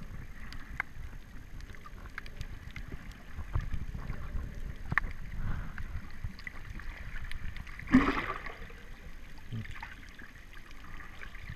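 Underwater ambience picked up by a submerged camera: a steady low rumble of moving water with scattered faint clicks, and a short, louder rush of water about eight seconds in.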